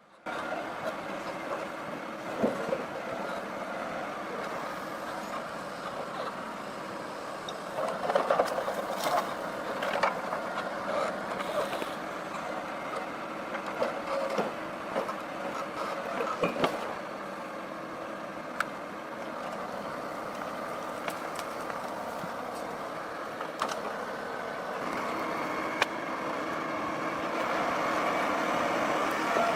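Forwarder's engine running steadily while its crane handles logs, with scattered sharp knocks. The machine gets louder near the end.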